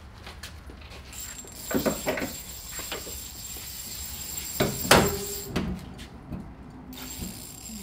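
Knocks and clunks of hands and tools working on a car's fiberglass front bumper: a few sharp knocks, the loudest about five seconds in.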